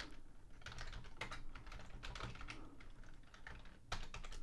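Typing on a computer keyboard: a run of quick, irregular keystrokes, faint, with a louder group of keystrokes near the end.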